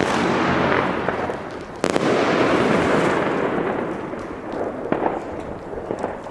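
A 30 mm consumer firework battery (Riakeo Cyber World E, 20 shots) firing: dense crackling with one sharp bang about two seconds in, then fading away with a few scattered pops.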